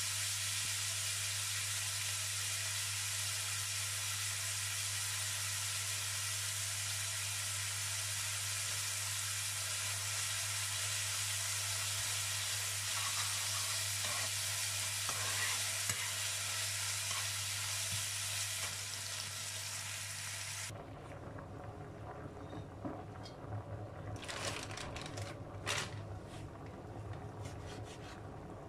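Ground meat sizzling steadily in a nonstick frying pan while it is stirred, over a steady low hum. About two-thirds of the way through, this cuts off. What follows is a quieter stretch of a knife slicing a cured sausage on a plastic cutting board, with a few light knocks.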